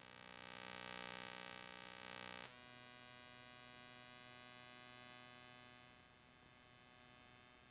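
Faint steady hum with many overtones, which changes abruptly about two and a half seconds in and then runs on evenly.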